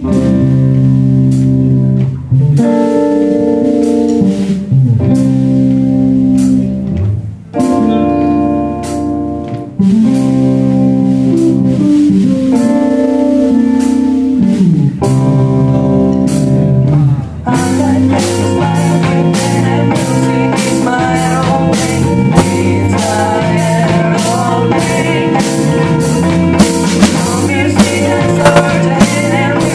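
Band playing a song on bass, electric guitar and drums. About 17 seconds in the arrangement turns fuller, with denser drumming and cymbals.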